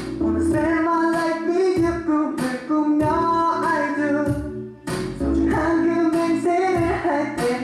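A young male voice singing a Korean pop ballad solo, in long phrases with a brief pause about two-thirds of the way through.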